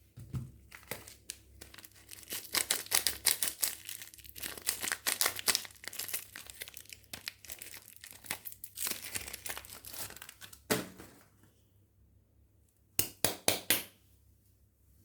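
Soap wrapper crinkling and tearing as a bar of soap is unwrapped: a dense run of crackles for about ten seconds, then a short burst of sharp crackles near the end.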